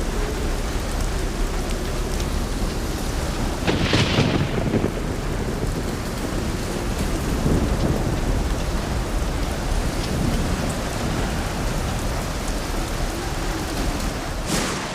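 Violent thunderstorm: a dense, steady rush of heavy rain with a deep rumble underneath, and a louder burst about four seconds in and again near the end.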